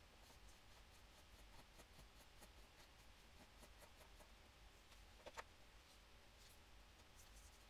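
Near silence with faint, scattered light scratches and ticks of small objects being handled, and one slightly sharper click about five seconds in.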